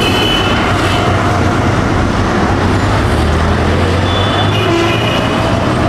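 Busy street traffic: a steady low rumble of passing motor vehicles, with short high-pitched tones near the start and again about four to five seconds in.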